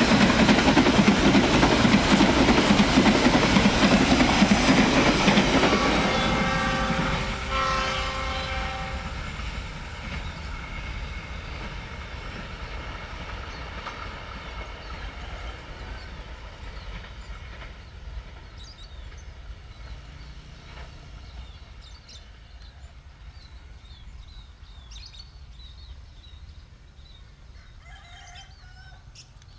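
Passenger train coaches rolling past close by, wheels clattering over the rail joints, then fading steadily as the train runs away round a curve. About six seconds in, the locomotive's horn sounds for a few seconds from a distance, the warning signal blown for level crossings. Faint bird chirps come through in the last few seconds.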